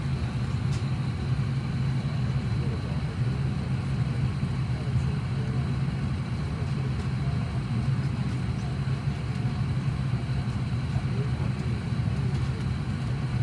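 Steady low drone inside an airliner cabin: jet engines and cabin air running evenly, with faint voices under it.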